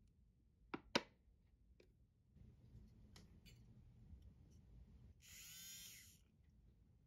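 A couple of sharp clicks, then a handheld battery milk frother's small motor running as its wire whisk spins in chocolate sauce at the bottom of a glass: a faint low hum, rising to a louder, high whirring for about a second near the end.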